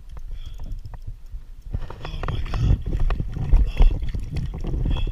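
Water sloshing and splashing against a plastic kayak hull, with many knocks and bumps on the hull, louder from about two seconds in.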